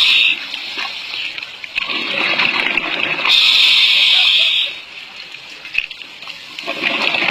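Scuba diver breathing underwater through a regulator: a rush of exhaled bubbles, then a steady hiss of inhaling for about a second and a half, in a slow cycle. The next exhale begins near the end.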